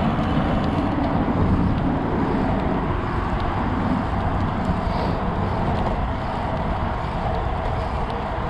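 Steady rush of wind and road noise from riding a road bike, heard on the rider's camera microphone.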